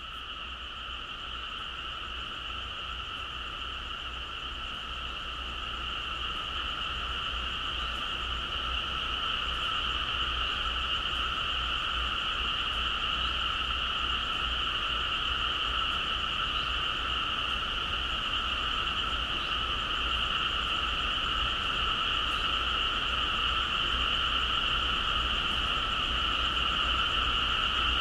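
Dense chorus of frogs, a steady shrill trilling in two pitch bands that swells slowly over the first several seconds, over a low steady hum.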